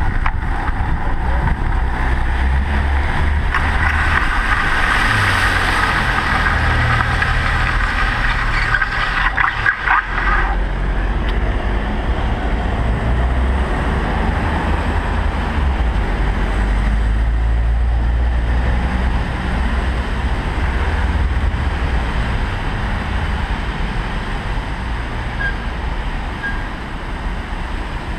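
Wind noise on a bicycle-mounted camera's microphone while riding, then city car traffic rumbling past at an intersection. A steady high whine runs from a few seconds in until about ten seconds in.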